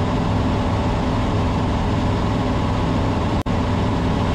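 Cessna 150's four-cylinder Continental O-200 engine and propeller droning steadily at cruise power, the mixture just leaned. The sound breaks off for a split second about three and a half seconds in.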